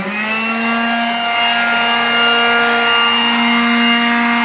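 Power sander running steadily with a motor whine that rises slightly in pitch at the start and then holds.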